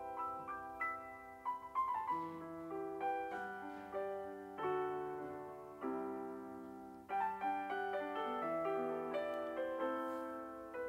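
Background piano music: slow notes and held chords that fade after each strike.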